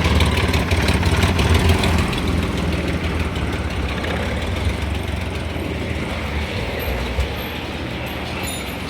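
Multicab mini truck's 12-valve engine running steadily, a low rumble that grows gradually quieter.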